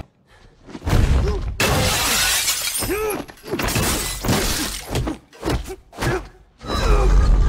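Glass panes shattering loudly as a body is smashed into a glass-paneled door, starting about one and a half seconds in; then a quick series of punch and body-blow impacts, ending in a heavy thud.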